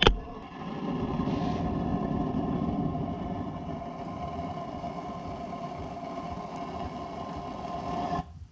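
Propane foundry burner, fed through a grill burner nozzle into a pipe, running at full blast: a steady rushing sound with a steady ringing tone over it, then cut off suddenly about eight seconds in. The flame is not centred and the burner pipe is too long.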